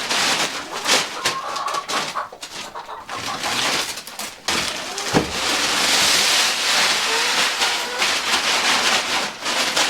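Laying hens clucking while feed is poured into their trough, a rattling, hissing pour of grain that grows heavier about halfway through.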